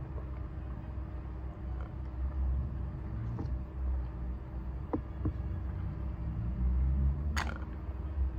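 Steady low background rumble with a few faint clicks, and one sharp tap about seven seconds in as a paper instant-noodle cup is set down on the table.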